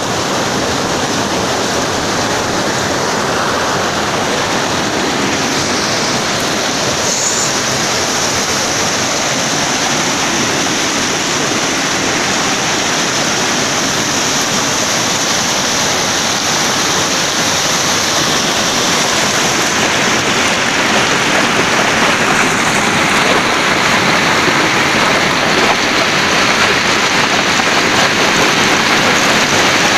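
Fast mountain stream rushing and tumbling over rocks, a steady loud rush of water that grows a little louder about two-thirds of the way through.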